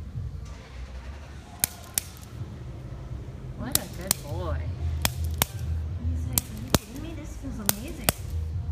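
Spring-loaded chiropractic activator adjusting instrument firing against a dog's back: about eight sharp single clicks, spaced irregularly a fraction of a second to a second or so apart.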